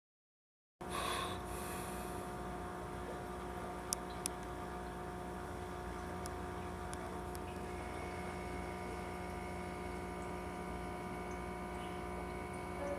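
Steady electrical hum of fish-room equipment, several steady tones layered together, with a higher tone joining about eight seconds in and two faint clicks around four seconds in.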